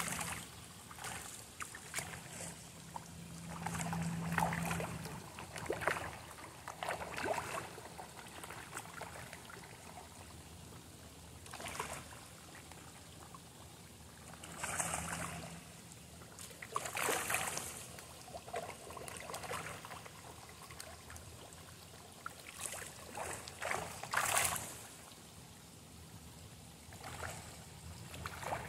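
Koi splashing at the pond surface as they feed on floating pellets, in irregular bursts every second or few.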